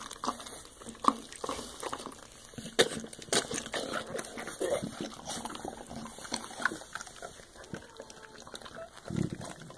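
Soft-coated wheaten terrier mother licking a newborn puppy clean right after its birth: irregular wet licks and smacks, with a brief low sound near the end.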